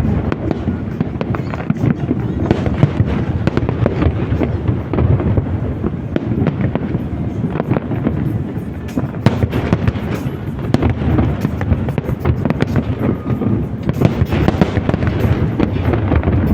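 Fireworks display going off: a dense, unbroken run of deep booms and sharp crackling bursts.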